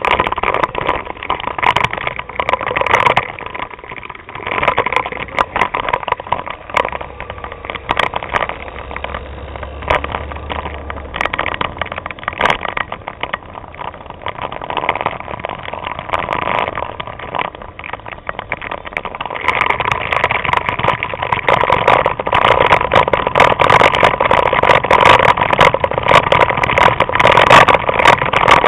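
Vespa scooter engines running at riding speed in a group ride, with wind rushing over the action camera's microphone and many small knocks from the hand-held camera. It gets louder a little past the middle.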